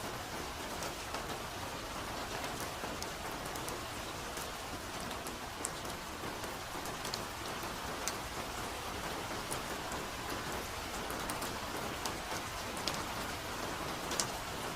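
Steady soft rain falling on foliage, an even hiss with individual drops ticking sharply here and there.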